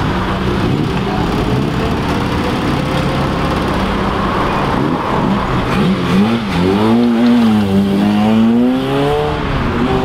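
Mk1 Volkswagen Golf's engine running low as the car rolls out of a junction, with other cars idling. About six seconds in it revs up and down, then climbs as the car accelerates away; this is the loudest part.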